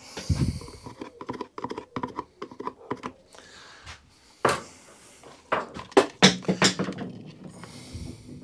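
Irregular clicks, taps and knocks of hands and a tool handling a lawnmower's plastic recoil starter housing, with a cluster of sharper knocks about six seconds in.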